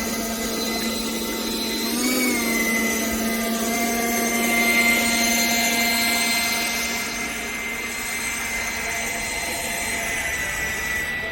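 Freewing F-22 Raptor RC jet's 90mm electric ducted fan whining steadily. Its pitch dips and recovers briefly about two seconds in, and it grows louder with a rushing hiss from about four to seven seconds in.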